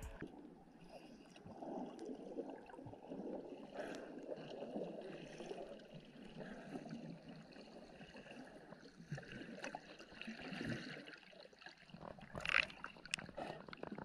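Water gurgling and sloshing around a camera in the sea during snorkeling, with scattered small clicks and a louder burst near the end.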